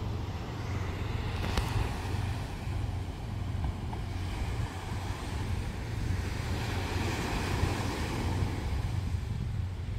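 Steady outdoor wind noise on the microphone, an even low rumble with a hiss above it.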